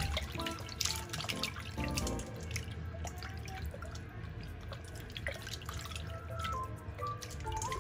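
Water splashing and dripping in a stainless steel bowl as whole squid is rinsed and rubbed by hand, in uneven splashes. Light background music with a simple melody plays along.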